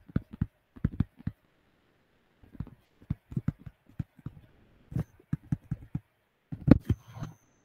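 A stylus tapping and clicking against a tablet or touchscreen while handwriting, in quick irregular clusters of taps, with a louder knock near the end.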